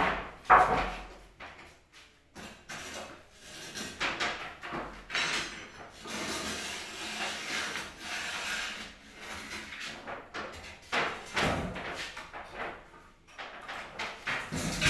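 Work on a wooden window being opened: irregular knocks and thuds of wood, with a stretch of scraping and rubbing about six seconds in.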